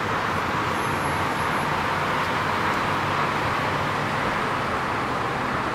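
Steady hum and hiss of a vehicle heard from inside its cabin while it idles or creeps along in slow traffic.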